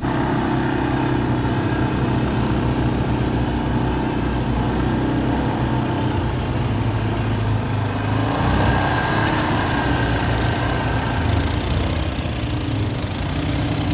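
Off-road vehicle engine running steadily at a low, even pace.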